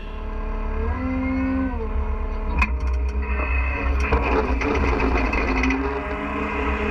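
Caterpillar 297C compact track loader's diesel engine running, its pitch rising as it revs up about a second in. A few sharp clicks follow, and from about three seconds in the sound turns rougher and noisier.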